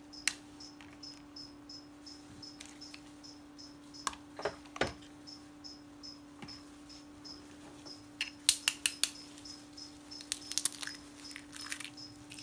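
Sharp taps and cracks of pheasant eggshells being broken open with a flat metal scraper, with a loud cluster of taps about two thirds of the way through. A steady low hum and a short high chirp repeating about three times a second run beneath.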